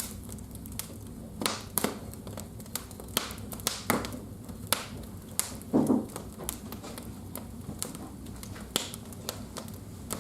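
Fire in a fireplace crackling, with irregular sharp pops and snaps. A brief, louder low sound comes about six seconds in.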